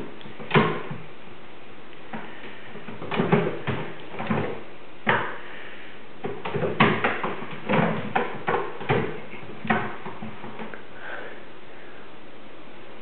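Irregular thumps and knocks of kittens scampering and pouncing on a roof, heard from the room beneath it, coming in uneven clusters with short gaps.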